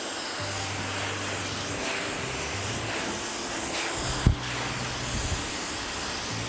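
Handheld hair dryer blowing steadily on a client's hair, a constant rushing hiss of air. A single sharp knock about four seconds in.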